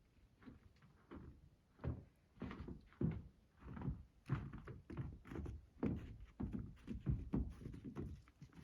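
Footsteps of a hiker walking at a steady pace, about two heavy steps a second.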